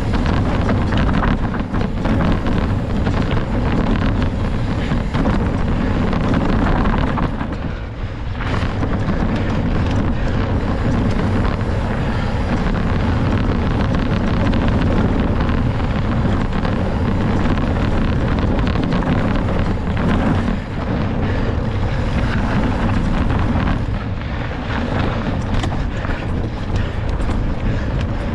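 Wind buffeting the microphone of a camera on a cross-country mountain bike at race speed, with many small rattling clicks from the bike on rough trail. The noise eases briefly twice.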